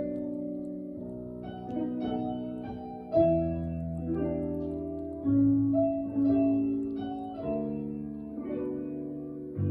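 Piano playing a slow passage of sustained chords, with louder low bass notes struck about three seconds in and twice more around the middle.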